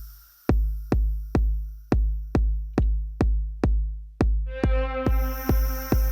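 Electronic music from an Elektron groovebox: a deep drum-machine kick drum beats about twice a second, dropping out for a moment right at the start. About four and a half seconds in, a held synth note with many overtones comes in, joined by a high hiss.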